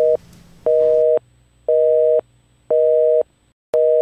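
Telephone busy tone after the call is hung up: a steady two-note tone beeping on and off about once a second, about five beeps, with a brief dead gap just before the last one.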